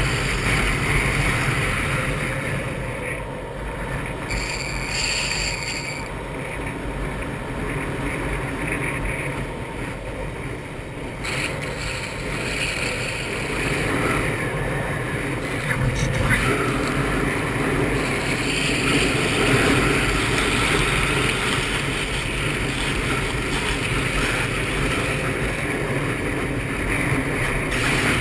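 Longboard wheels rolling fast over rough asphalt, with rushing wind on the GoPro's microphone. The noise is steady, easing for a few seconds and then growing louder again about halfway through.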